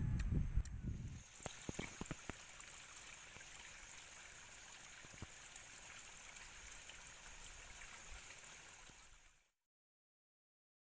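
Water pouring from a bamboo pipe and running in a rocky stream: a steady faint splashing hiss with small clicks, which cuts off suddenly about nine seconds in. A low rumble fills the first second.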